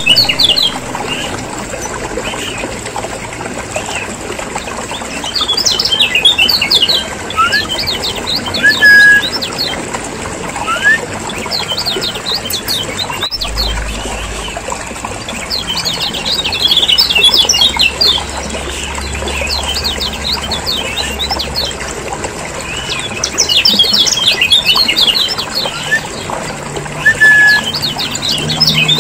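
Kecial kuning (yellow white-eye) birds calling noisily: repeated bursts of rapid, high chattering notes every few seconds, with a few short, lower whistled notes between them.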